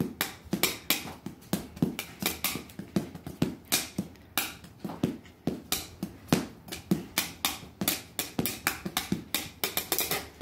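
Improvised drumming with thin sticks on a flat plastic building tile and cushions: an uneven stream of sharp clicks and taps, about four a second.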